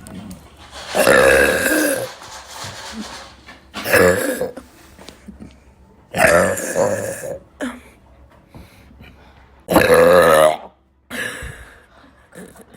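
A woman burping: four long, loud, pitched belches a few seconds apart, with a fainter one near the end.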